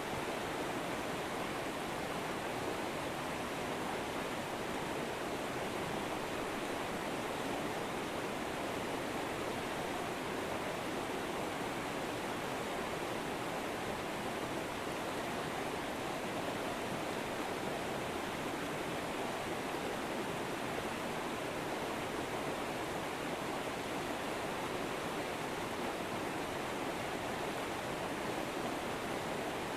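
River water flowing over rocks, a steady rushing with no change.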